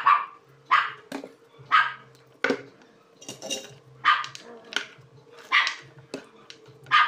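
A dog barking over and over, about ten short barks at roughly one to two a second, with a faint steady hum underneath.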